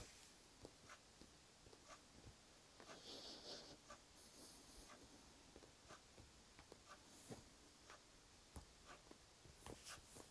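Faint, irregular soft scratches and rustles of a cat kneading a plush teddy bear, its paws pressing and its claws catching in the fabric.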